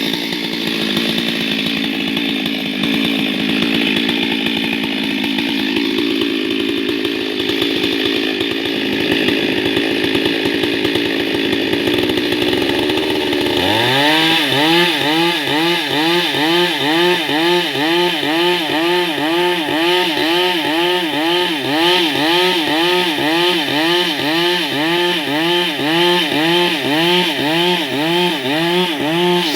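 STIHL MS 382 two-stroke chainsaw running hard, cutting wood. About halfway through, its engine note starts rising and falling about once a second.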